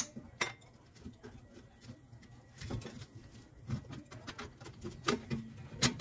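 Light metallic clinks and taps, a handful at irregular intervals, as the loosened bolts of a 2011 Nissan Sentra's rear hub-bearing assembly are worked out by hand against the steel hub flange.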